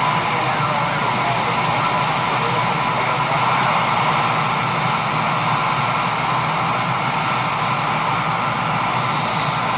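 Steady hiss of band noise from a CB radio receiver with the squelch open and no station coming through, heard over the radio's speaker.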